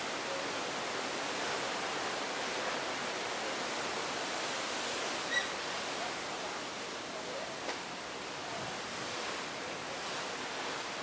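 Steady rush of seawater streaming past the hull of a cruise ship under way, an even noise without rhythm. A short high squeak sounds about five seconds in, and a faint click comes a couple of seconds later.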